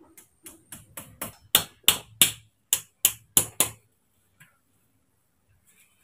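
Hammer blows on bamboo: about a dozen quick strikes, the later ones louder, then they stop.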